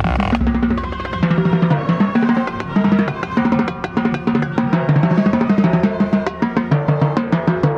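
Marching snare drum played close to the microphone, with rapid stick strokes and rolls over the full band playing a melodic passage.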